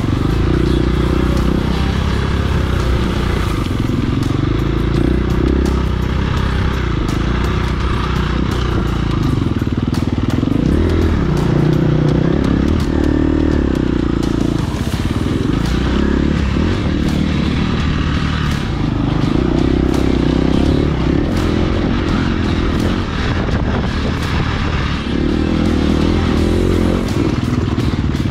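Engine of an off-road vehicle on a trail ride, running continuously under load with the revs rising and falling, amid a light clatter.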